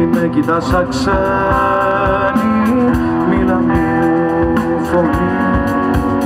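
Live rock band playing through a stage PA: electric guitars prominent over keyboard and drums.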